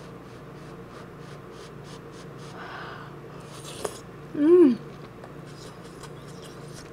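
Person blowing softly on a spoonful of hot kimchi stew, with faint mouth clicks, then a short hummed "mm" that rises and falls about halfway through, the loudest sound.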